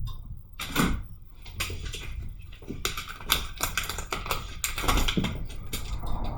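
A quick, irregular run of light clicks and taps, like keys being typed.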